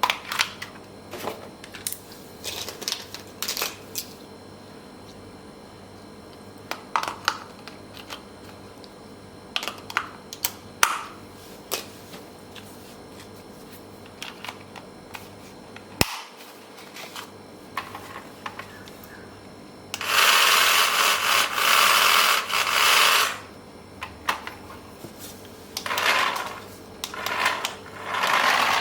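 Handling noises from unboxing a toy RC car: scattered clicks, taps and short rustles of packaging and plastic parts. A louder, even rasping noise lasts about three seconds past the middle, followed by a few shorter bursts near the end.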